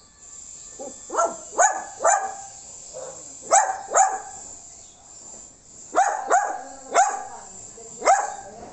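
A small dog barking in short yaps, about nine in all and often in quick pairs, over a steady high hiss of crickets.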